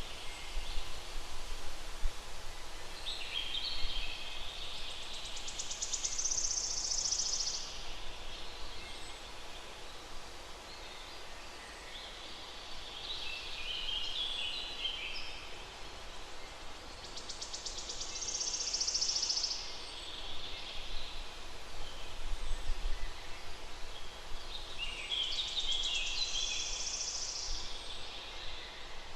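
A songbird singing three separate phrases about ten seconds apart, each a quick jumble of notes followed by a very high, rapid trill, over steady outdoor background hiss.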